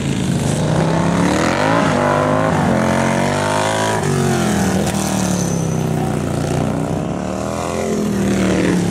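Big twin-cylinder bagger motorcycles racing, their engines revving down and up in turn as they brake into and accelerate out of corners, with more than one bike heard at once.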